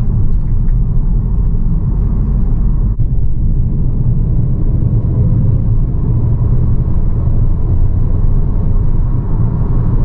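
Cabin noise inside a 2023 Geely ICON SUV accelerating hard: a steady low rumble of engine and road noise, with a brief dip about three seconds in.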